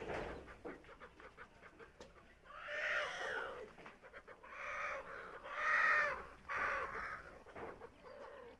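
A rooster crowing: a long crow of several drawn-out, arching notes starting about two and a half seconds in, over a flock of chickens. A sharp knock sounds right at the start.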